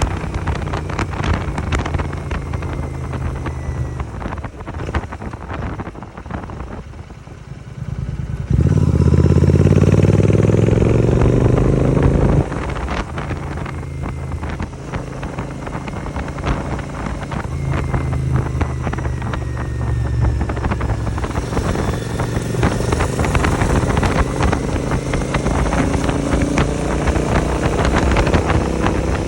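A 650 twin motorcycle's engine and AEW 101 aftermarket exhaust while riding: steady running that drops quieter for a few seconds, then a hard acceleration with rising pitch, the loudest part, that cuts off abruptly about twelve seconds in. It then runs steadily again, the pitch climbing slowly toward the end, with wind on the microphone.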